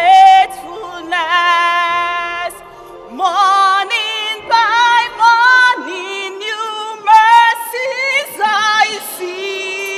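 A woman singing a worship song with feeling, holding long, wavering notes between short phrases.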